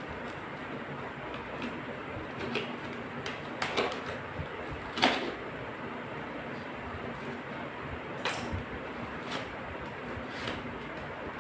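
A parcel being handled and unpacked by hand: scattered clicks, knocks and rustles over a steady hiss, the sharpest knock about five seconds in.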